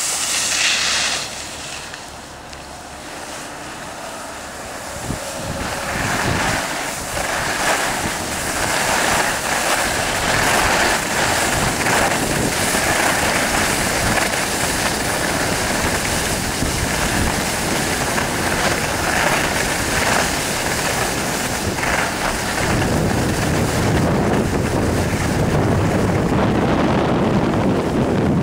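Wind rushing over the microphone of a camera moving down a ski slope, mixed with the hiss of skis sliding on snow. It grows louder about six seconds in, and a deeper rumble joins about three-quarters of the way through.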